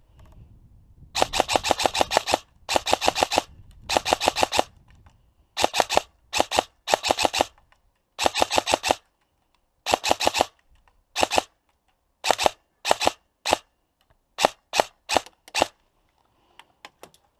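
Airsoft gun firing in rapid bursts: some fifteen bursts of quick, evenly spaced shots, the longest in the first few seconds and shorter ones later, then a few single shots near the end.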